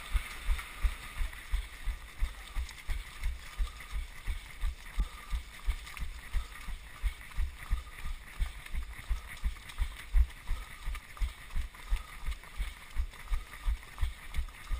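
Running footfalls in a steady stride, about three a second, heard as low thuds as each step jolts a body-worn GoPro, over the noise of a pack of runners.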